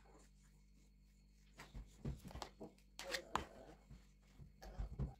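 Soft, scattered scrapes and clicks of a knife spreading whipped cream over a sponge cake layer. They start about a second and a half in, with a louder cluster around the middle.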